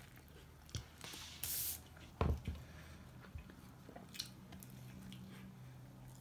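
A person biting into and chewing a large grilled French tacos wrap, with soft wet mouth sounds and a few small clicks. A short hiss comes about one and a half seconds in, and a dull knock just after two seconds.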